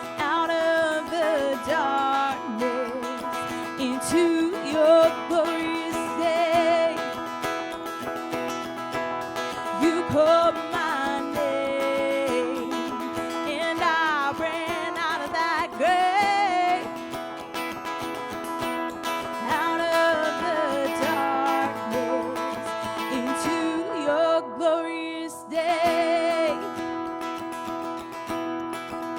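A worship song in a church service: singing with acoustic guitar strummed.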